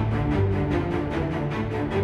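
TV show theme music with a steady beat.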